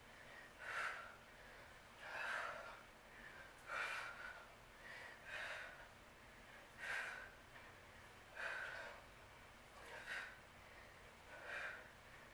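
A woman breathing hard from exertion, a short forceful exhale about every one and a half seconds, eight in all, in time with her abdominal crunch reps; faint.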